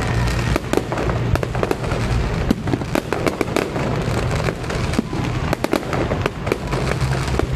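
Fireworks display going off in rapid, irregular succession: many sharp bangs and crackles, several a second, over a continuous low rumble.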